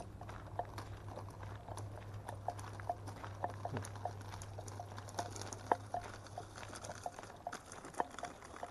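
Footsteps on a gravel dirt trail: irregular light scuffs and ticks, a few a second, over a faint low hum that weakens near the end.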